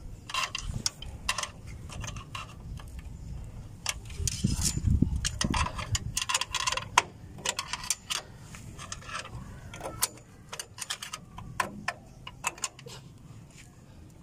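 Irregular metal clicks, clinks and taps of drum brake hardware being fitted by hand: brake shoes and springs worked into place on the backing plate with a long flat tool. A louder stretch of low knocks comes about four to six seconds in.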